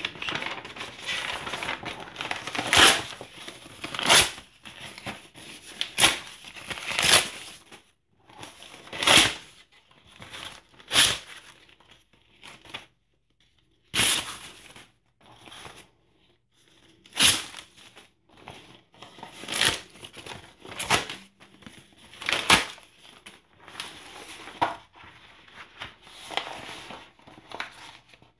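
Newspaper and glossy advertising flyers being torn by hand into strips: about a dozen sharp rips, one every second or two, with rustling and crinkling of the torn paper between.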